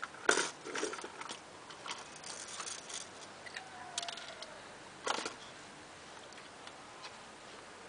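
Light clicks and taps of small plastic toy dishes and bowls being handled. They are scattered and irregular, the loudest about five seconds in, and thin out near the end.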